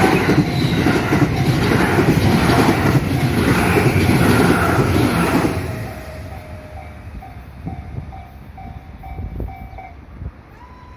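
Train on the JR Kobe Line passing through a level crossing, its wheels clattering over the rail joints, then fading away about six seconds in. The crossing's warning bell keeps ringing about twice a second and stops about ten seconds in.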